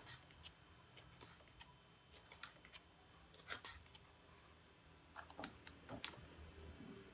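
Pages of a large paperback book being turned by hand: faint, scattered paper flicks and rustles, a few sharper ones about two and a half, three and a half, five and a half and six seconds in.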